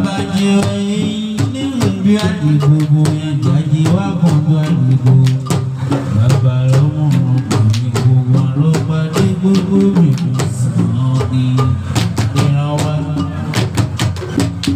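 Traditional percussion music: a wooden box drum struck with bare hands in a steady, fast rhythm, with a man singing over it.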